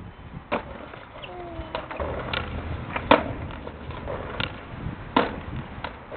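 Skateboard clattering on brick paving: a series of sharp clacks a second or so apart, the loudest about three seconds in, as the skater bails and the board and rider hit the ground.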